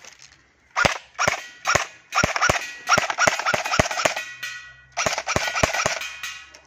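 All-plastic Umarex Heckler & Koch UMP airsoft replica firing about fourteen rapid single shots in two strings, with a pause of about a second near the middle.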